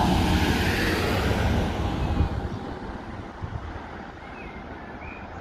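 An SUV driving off close past the microphone, its engine and tyre noise loud at first and fading over the first two seconds or so. Faint chirps come twice in the quieter second half.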